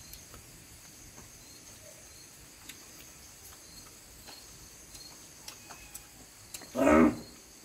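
Crickets chirring steadily, with a few faint scattered clicks. About seven seconds in, a short loud vocal sound from a person.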